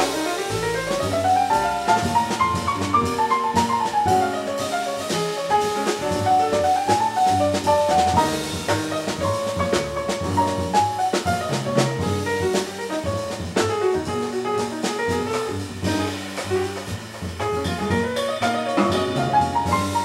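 Jazz piano trio playing: a grand piano runs fast melodic lines that climb and fall, over walking upright bass and a Gretsch drum kit with cymbals.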